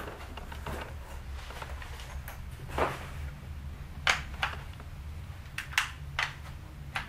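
Sharp metallic clicks and clacks from the action of a Stoeger M3500 12-gauge semi-automatic shotgun being worked by hand in a function check: about seven separate clicks, the first about three seconds in, over a low steady hum.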